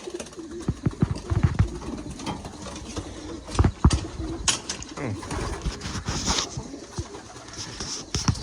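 Domestic pigeons cooing in a loft, with several sharp knocks and clatters among them.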